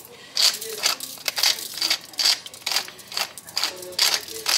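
Wooden pepper mill twisted back and forth, grinding peppercorns in short rasping strokes, about two a second.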